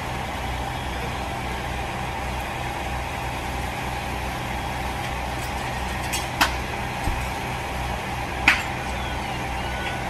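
Steady low hum of a fire engine's motor running at a house fire, with several sharp cracks about six to eight and a half seconds in, the loudest near the end. Faint repeated beeping starts near the end.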